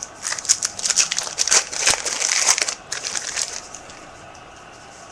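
Plastic trading-card pack wrapper crinkling and crumpling in the hands, a dense crackly rustle that stops about three and a half seconds in.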